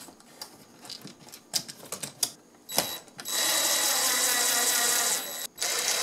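Light clicks and knocks of a switch and dimmer being pushed into a metal wall box. About three seconds in, a cordless drill-driver starts running steadily, driving a switch mounting screw, and pauses briefly near the end before running again.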